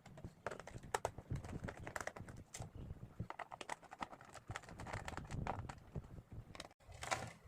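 Irregular clicks and taps of a small screwdriver working the screws on a laptop's plastic bottom case, with hands handling the case; a brief break near the end.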